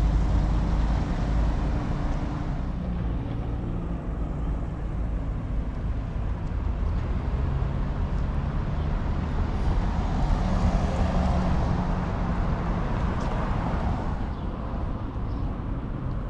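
Street traffic: vehicle engines running and cars passing close by, with one vehicle passing louder about ten seconds in.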